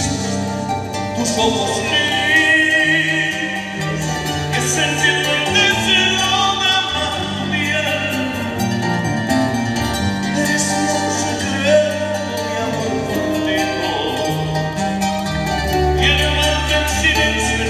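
Live Andean folk band: a male lead singer singing into a microphone over plucked strings and a stepping bass line.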